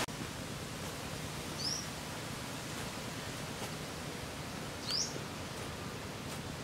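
Steady outdoor hiss with a bird giving a short rising chirp twice, about one and a half and five seconds in. Faint knocks of a digging tool striking the soil.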